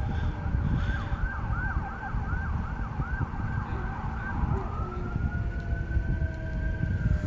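Emergency vehicle siren in yelp mode, a fast up-and-down whoop about three times a second, switching a little over four seconds in to a slow wail that rises and then begins to fall, over a steady low rumble.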